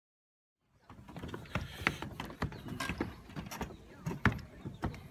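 Footsteps of someone walking, heard as an irregular series of knocks about every half second with rustling over the microphone, starting just under a second in after dead silence.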